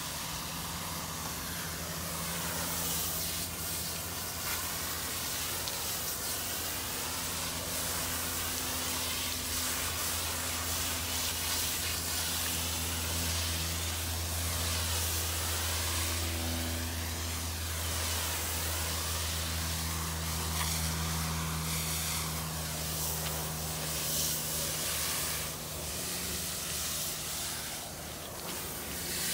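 Pressure washer spray hissing against air-conditioner condenser coils, the hiss swelling and fading as the wand sweeps across the fins, over a steady low hum of machinery.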